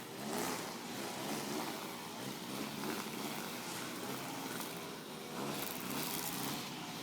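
Gasoline-powered street-cleaning machines running steadily, their engines swelling and easing in loudness.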